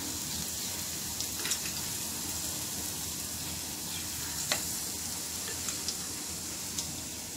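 Oil sizzling steadily as bread-and-cheese balls deep-fry in a kadai, with a few light clicks.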